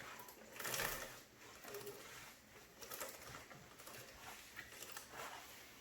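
Cloth wiping a motorcycle wheel rim dry: faint rubbing strokes, the strongest about a second in, with a brief light squeak.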